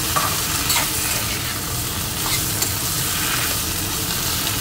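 Taro and tomato pieces in spice masala sizzling as they fry in oil in a stainless steel kadai, with a metal spatula scraping and knocking against the pan in a few separate strokes as the mixture is stirred.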